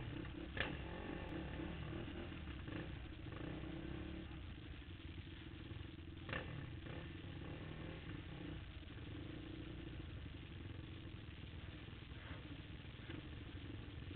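Race ATV engines idling on the start line behind the starting gate, waiting for the start. A couple of short clicks are heard, about half a second in and again about six seconds in.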